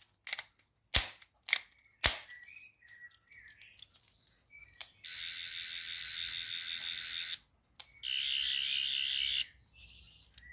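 A few sharp plastic clicks, then a Character Options Doctor Who sonic screwdriver toy sounding its electronic effect from its small speaker twice: a high-pitched warbling whirr of a little over two seconds, a short break, then another of about a second and a half.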